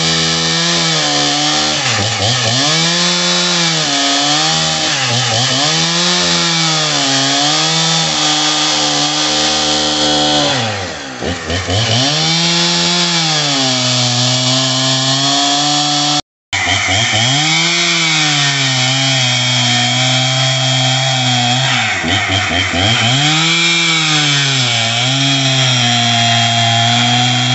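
Husqvarna 61 two-stroke chainsaw at full throttle ripping a log lengthwise into planks. Its engine note sags under load and picks back up every second or two. About eleven seconds in it drops off and revs back up, and just past halfway the sound breaks off for a split second.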